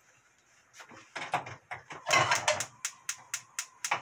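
Kitchen handling knocks and a cloth rustling, then a gas stove's spark igniter clicking about four times a second as the burner is lit.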